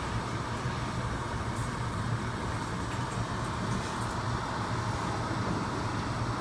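Steady low hum with an even hiss.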